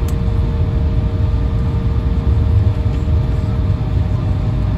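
Cabin noise of an Embraer E175 regional jet taxiing after landing: a steady low rumble from the idling CF34 turbofans and rolling gear, with two steady hums above it.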